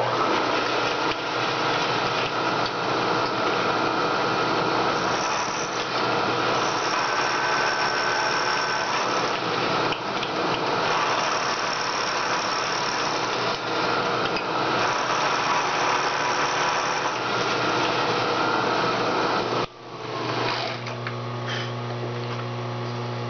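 Vertical milling machine taking a cut across a rough-sawn aluminium block with an end mill to square it up: a dense, steady cutting noise over the hum of the spindle motor. About twenty seconds in the cut ends, and the spindle keeps running on its own with a steady hum.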